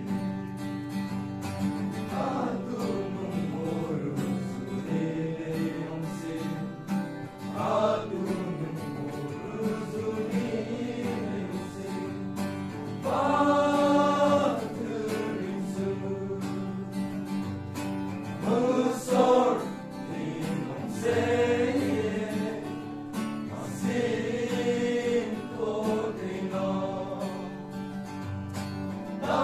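Male voice choir of young men singing a gospel hymn together, swelling louder at a few points.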